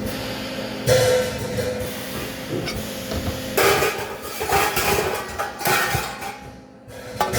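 Metal being knocked and handled in a workshop, several sudden clanks and clatters over a steady electrical hum.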